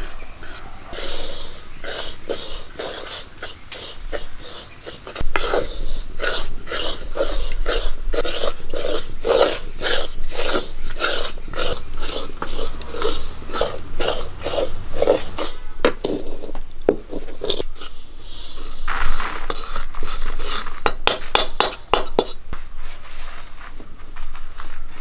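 Flat spatula scraping and stirring dry rice flour around a metal wok, an even run of strokes about two a second, pausing briefly past the middle before starting again. The flour is being dry-roasted.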